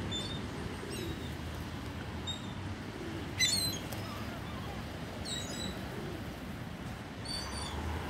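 Gulls giving short, high calls about half a dozen times, the loudest about three and a half seconds in, over a steady low rumble.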